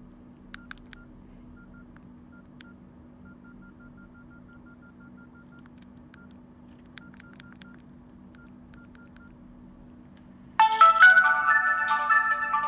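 Nokia N82 mobile phone keypad tones: short high beeps at one pitch as keys are pressed, including a fast even run of beeps, with a few sharp button clicks. About ten and a half seconds in, a loud electronic ringtone melody starts playing from the phone's speaker.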